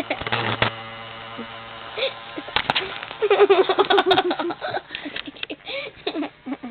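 A person laughing in quick repeated bursts, heaviest about three to four seconds in, over sharp knocks and clicks from the camera being handled.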